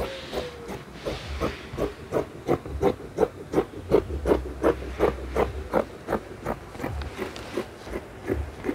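Scissors snipping through fabric in a steady run of cuts, about three a second, each closing of the blades a short click.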